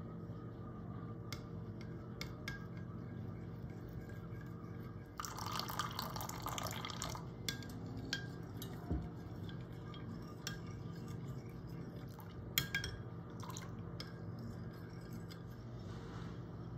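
Hot water poured into a small glass bowl of gelatin powder for about two seconds, then a metal spoon stirring and clinking against the glass, with one sharper clink late on. A steady low hum runs underneath.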